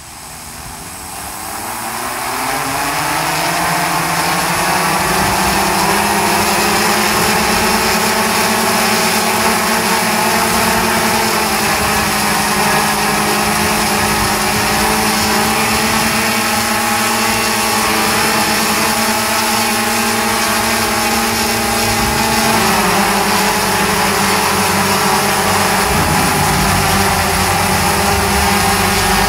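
Tarot T1000 octocopter's eight brushless motors and propellers spinning up over the first few seconds in a pre-flight run on a test stand, then running steadily with a hum of several tones. The pitch shifts slightly about twelve seconds in and again about twenty-two seconds in.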